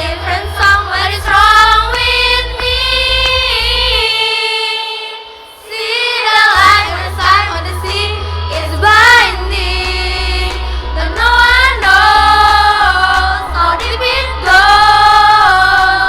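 Choir of young voices singing held, gliding notes over a low backing accompaniment; the accompaniment and voices briefly fall away about four seconds in, then the singing comes back in full.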